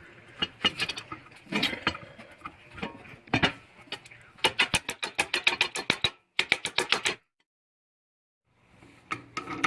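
Handling noise of scooter parts and tools being worked on, then a run of rapid, even clicks, several a second, like a ratchet wrench turning a wheel or peg bolt. The sound cuts out abruptly for over a second near the end, then the handling noise resumes.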